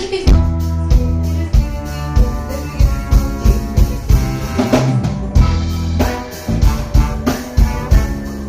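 Band music: a drum kit playing a steady beat, about two hits a second, over sustained bass notes and guitar.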